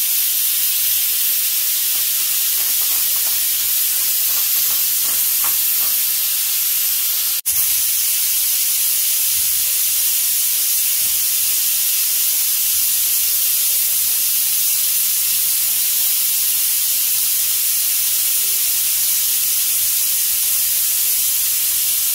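Aluminium stovetop pressure cooker hissing loudly and steadily as steam escapes from its weight valve while it cooks under pressure. The hiss cuts out for an instant about seven seconds in.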